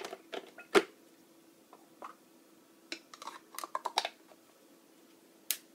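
Plastic clicks and knocks of a Crane drop-shaped humidifier's water tank being handled and set back onto its base: a sharp knock just under a second in, a quick cluster of clicks around three to four seconds, and one last click near the end, over a faint steady hum.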